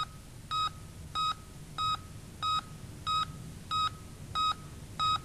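Heart monitor beeping once per heartbeat: short high beeps in a steady, even rhythm, about three every two seconds, marking a normal regular heart rhythm.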